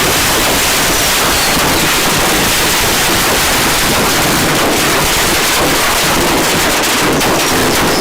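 A firework burning: a loud, steady hissing and crackling spray with a few faint whistles.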